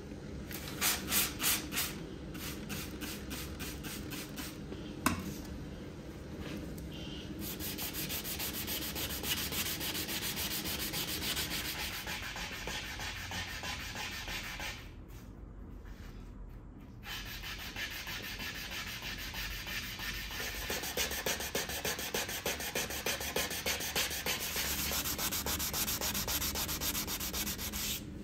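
A steel knife blade being hand-sanded with an abrasive, in rapid back-and-forth rubbing strokes, with a short break about halfway through.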